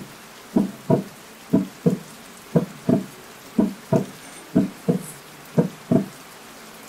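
Heartbeat sound effect: a steady lub-dub double thump about once a second, stopping near the end.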